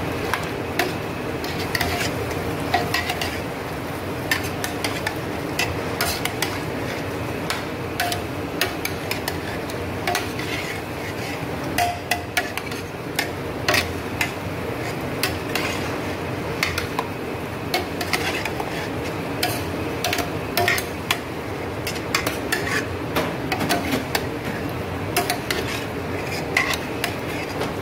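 A utensil stirring chicken and vegetables in a stainless steel pot, with many irregular clinks and knocks against the metal pot, over a steady sizzle of the food sautéing.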